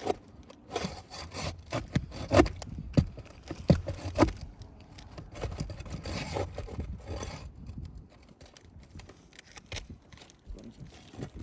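Roof shingles being lifted and worked by hand: irregular sharp knocks and taps for the first few seconds, then a longer scraping, quieter near the end.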